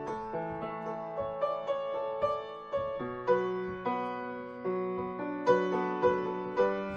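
Background piano music: a slow, gentle melody of single notes and chords, each note struck and left to fade.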